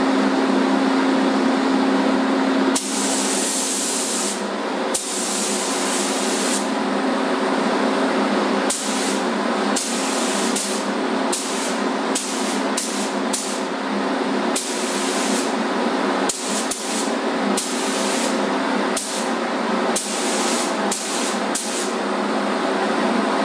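Gravity-feed paint spray gun hissing in bursts as the trigger is pulled: two longer passes, then a run of short bursts about a second apart, over a steady low hum.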